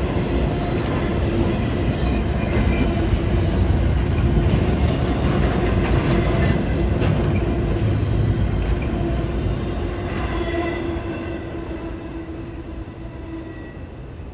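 Double-stack intermodal freight cars rolling past on the rails: steady rumble and wheel clatter, with a faint steady tone running under it. About ten seconds in the sound starts to fade as the last car passes and moves away.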